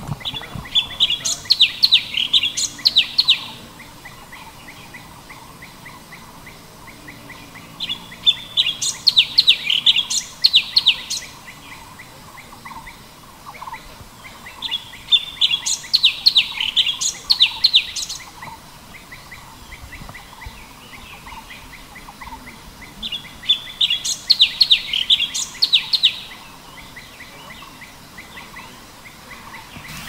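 Cucak cungkok singing: four phrases of quick, high chirping notes, each a few seconds long, repeating every seven or eight seconds.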